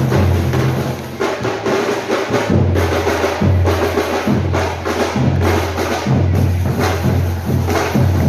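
Loud music with a heavy bass line in long held notes and sharp percussive knocks, played over an arena sound system.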